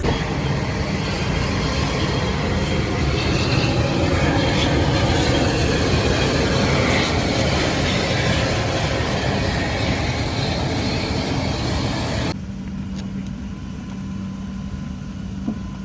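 Steady rumble and rush of a moving vehicle heard from inside. About twelve seconds in it cuts off abruptly to a quieter, steady hum.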